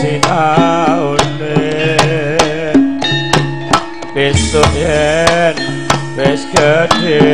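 Javanese gamelan (karawitan) ensemble playing: sharp kendang drum strokes, about two or three a second, over sustained pitched metallophone tones, with a wavering sung melody line.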